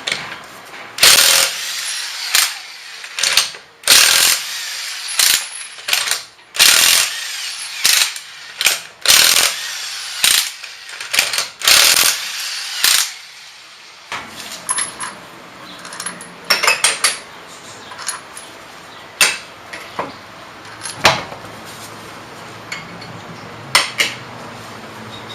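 Wheel nuts on the front wheel of a pickup being undone with a tool: a series of loud, short rattling bursts for about the first fourteen seconds, then quieter clicks and knocks.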